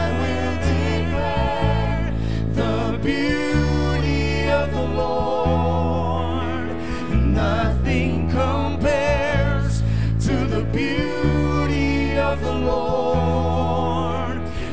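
Live contemporary worship music: a male lead singer and female backing singers singing with vibrato over keyboard, with held low chords changing every couple of seconds.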